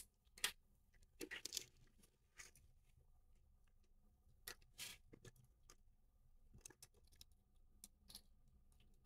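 Faint, irregular small clicks and scrapes of a Nintendo Joy-Con's small plastic parts and ribbon cable being handled while the cable is worked back into its connector.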